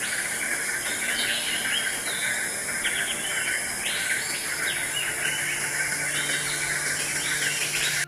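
Birds chirping in short scattered calls over a steady, high insect drone.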